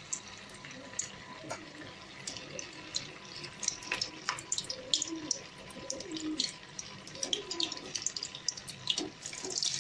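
A cheese corn ball deep-frying in very hot oil in a steel kadai: a steady sizzle with frequent crackling pops.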